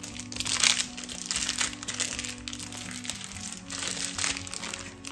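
Background music over several short bouts of plastic crinkling as the magenta ink bottle is handled.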